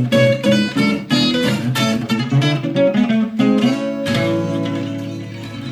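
Guitar music: quick plucked and strummed notes, ending about four seconds in on a chord that rings out and fades.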